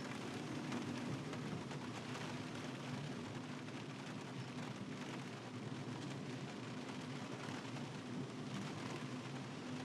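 Steady hiss of rain and of tyres on a wet road, over the low hum of a car driving.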